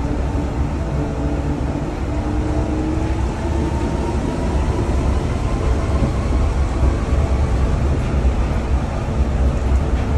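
Nippori-Toneri Liner rubber-tyred automated guideway train running along its concrete guideway, heard from inside the car: a steady deep rumble of tyres on the track with a motor whine whose pitch rises a few seconds in.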